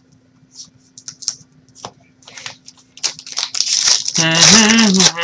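Trading-card packs and cards being handled: light scattered crinkles and rustles, then from about three seconds in a loud stretch of wrapper crinkling. A short hummed voice sound comes near the end.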